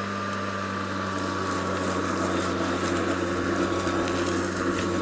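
Atlas 80V cordless brushless self-propelled lawn mower running as it is pushed across grass. The electric motor and blade give a steady low hum with a thin high whine.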